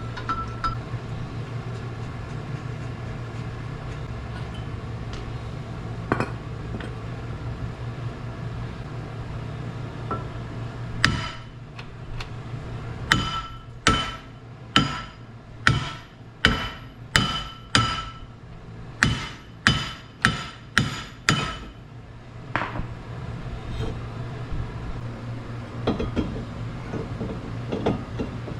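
A hammer striking metal about fifteen times over some ten seconds, each blow ringing briefly, over a steady low hum.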